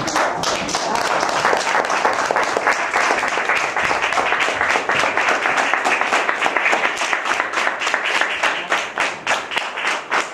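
Audience applauding, starting suddenly and holding steady. Toward the end the single claps stand out more distinctly.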